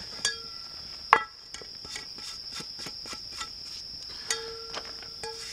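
A steady, high cricket trill, with sharp knocks and handling ticks as a cast-iron skillet and a plastic zip bag of dough are moved onto a wooden stump. The loudest knock comes about a second in, and another comes about four seconds in with a short ring after it.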